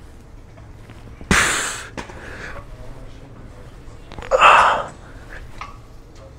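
A man's forceful, straining exhalations, two of them about three seconds apart and each about half a second long, one per rep of a heavy T-bar row. The first starts with a sharp knock.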